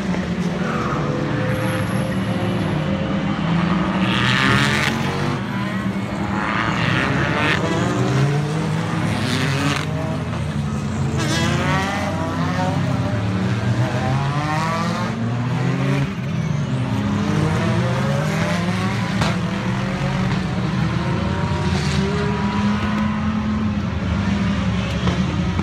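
Sports-car racers, prototypes and GT cars, passing one after another in a continuous stream. Their engines rise and fall in pitch as each car goes by, with the loudest passes about four, seven, nine and eleven seconds in.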